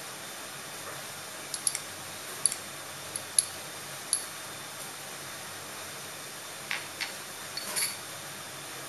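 A few light clicks and taps of glass dishes against a glass mixing bowl as diced mango is tipped in, scattered through the first half, with a couple of softer knocks near the end, over a steady hiss.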